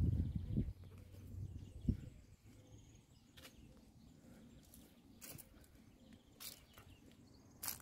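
Quiet outdoor ambience, opening with a brief low rumble on the microphone, then a faint steady low hum with a few sharp clicks spaced one to two seconds apart.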